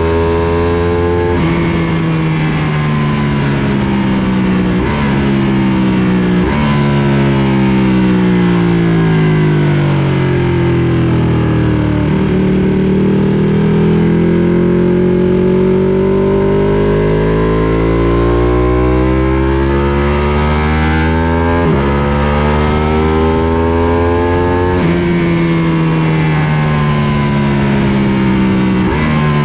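Sport motorcycle engine heard from on board at speed on a racetrack. The revs drop as the rider brakes, with blipped downshifts a few seconds in. The pitch bottoms out through a slow corner around the middle, then climbs under hard acceleration with a gear change about two-thirds through, and falls again near the end under braking, over steady wind rush.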